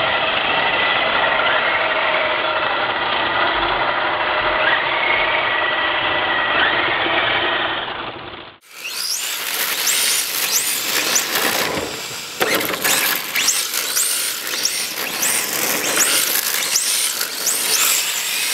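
Electric RC drift cars running: a steady motor whine, then about eight seconds in the sound changes abruptly to high whines that rise in pitch again and again as the throttle is worked, with tyres scrubbing on the asphalt.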